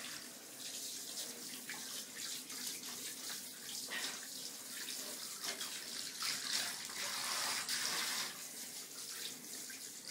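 Handheld bathtub shower spraying water onto a wet papillon's coat and into the tub: a steady hiss of running water that rises and falls in level, loudest a little past the middle.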